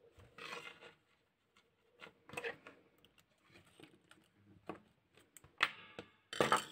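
Hand sewing through leather with waxed thread: a needle pulled through with pliers, giving a handful of scattered short rustles and small clicks, the strongest near the end.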